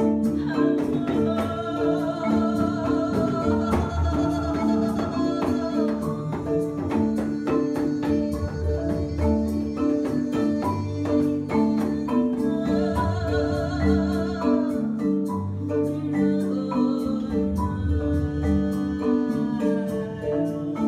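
Improvised world music led by a marimba playing a quick repeating pattern over hand-drum beats. A sustained, wavering melody line comes in over it twice, about a second in and again past the middle.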